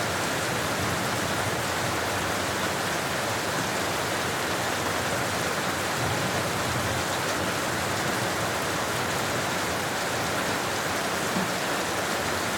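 Steady rain falling on a street, a continuous even hiss with no separate drops, thunder or changes.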